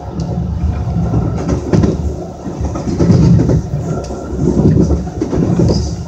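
Passenger train in motion, heard from inside the coach: a steady low rumble of wheels on rail with a few sharp clicks.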